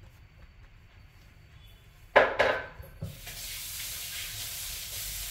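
Two loud clattering knocks about two seconds in, then water running steadily from a kitchen tap from about three seconds on.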